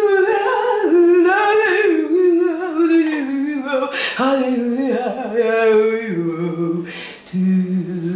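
A woman's voice humming and crooning in long, wavering tones that slide up and down, dropping lower about six seconds in and breaking off briefly near the end: a sung demonstration of the pleasure and relief of having an itchy back scratched.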